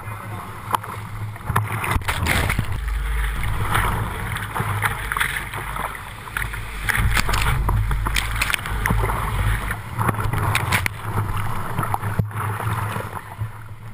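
Whitewater rapids rushing and crashing around a creek kayak, with repeated splashes from waves and paddle strokes over a low, swelling rumble of the current.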